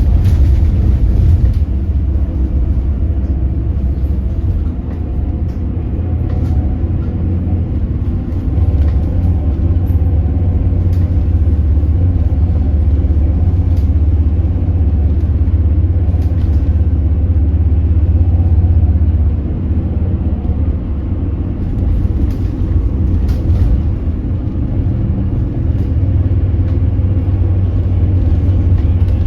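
Hydrogen fuel-cell city bus running, heard from inside: a steady low rumble with a faint whine, and occasional short clicks or rattles.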